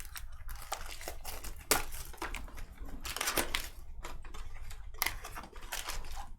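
Trading cards and plastic card holders being handled on a table: rustling and sliding with several sharp clicks and taps.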